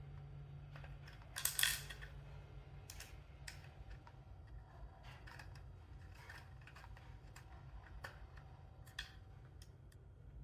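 Small clicks and taps of acrylic stand parts and metal fittings being handled and fitted together, with a louder short clatter about one and a half seconds in.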